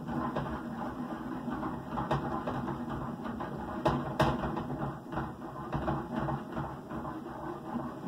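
A skillet of tortellini in simmering broth being shaken back and forth over a gas burner: the pan scrapes and rattles on the cast-iron grate, with a few sharp clinks.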